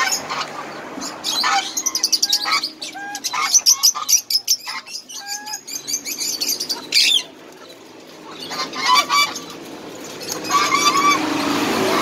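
Mixed calls of penned fowl and aviary birds, geese among them: many short overlapping calls and chirps, with a denser run of rapid chatter in the last few seconds.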